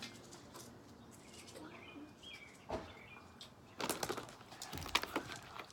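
A few faint bird chirps about two seconds in, with scattered clicks and rustling that grow louder in the second half.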